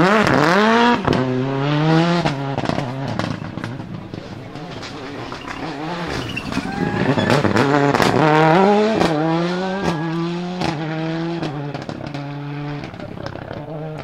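Toyota Corolla WRC's turbocharged 2.0-litre four-cylinder rally engine accelerating hard twice, its note climbing and dropping with each quick upshift, with sharp pops and bangs from the anti-lag system. The sound fades near the end as the car goes away.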